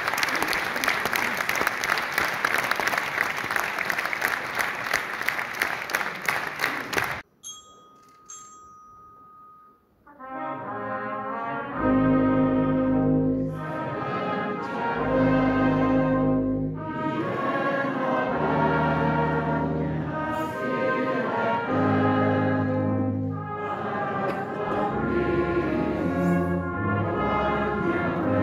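Audience applauding for about seven seconds, cut off abruptly. After a short lull a brass band starts a slow piece of long, held chords in phrases, loud from about twelve seconds in.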